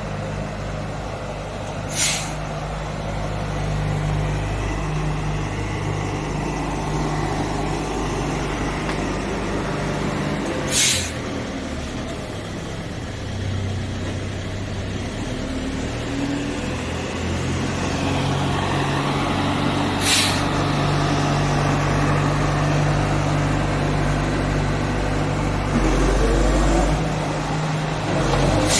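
John Deere 160 excavator's diesel engine running under changing hydraulic load, its note shifting as the machine works, with whining from the hydraulics. Three short, sharp hisses cut through, roughly nine seconds apart.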